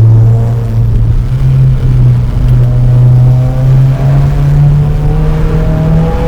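Subaru WRX's 2.0 turbo boxer engine and exhaust heard from inside the car under acceleration through its CVT, the engine note climbing slowly and steadily in pitch, with a brief dip near the end before it climbs again.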